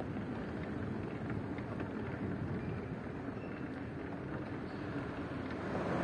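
Steady outdoor wash of wind and ocean surf with no distinct events, growing a little louder near the end.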